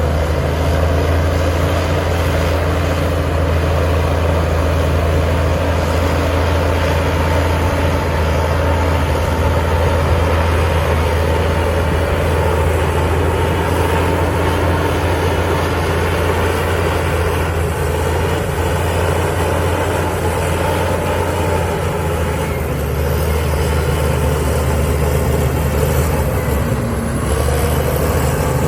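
Heavy earth-moving machine's diesel engine running steadily with a deep, even drone.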